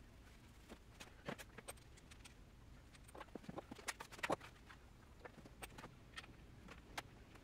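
Faint scattered clicks and light taps of metal parts and a hand tool being handled while a BMX bike's handlebars and stem are fitted, coming thickest around the middle.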